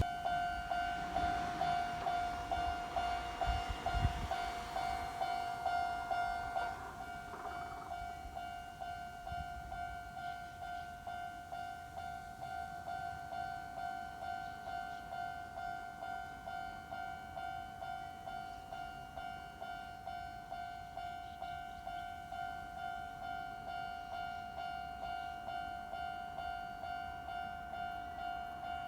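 Level crossing warning bell ringing in an even, repeated ding. A train runs over the crossing for the first several seconds, its wheels adding noise and low thumps, then the bell rings on alone.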